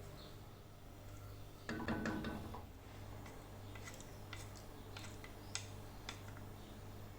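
Light clicks and taps of objects being handled, with a louder clatter about two seconds in, over a low steady hum.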